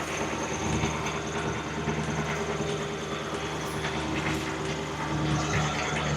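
A vehicle engine running steadily with an even low drone.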